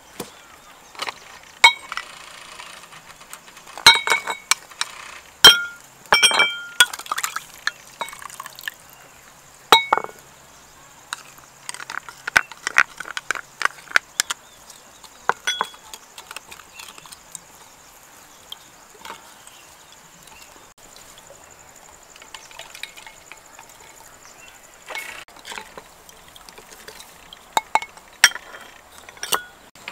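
A spoon clinking against a glazed ceramic bowl while stirring a thick honey sauce: a run of sharp, ringing clinks, busiest in the first ten seconds and again near the end.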